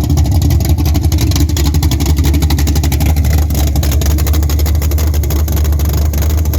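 Chevrolet Nova's 427 big-block V8 with a solid roller camshaft, running loud and steady at idle with a fast, even pulse.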